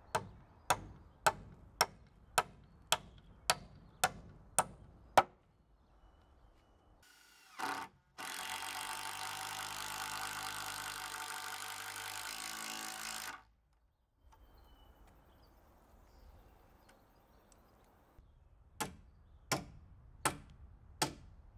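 A wooden-handled claw hammer driving nails into timber framing: about ten even blows, one every half second. Then a cordless drill runs steadily for about five seconds, and after a pause the hammer strikes about five more times near the end.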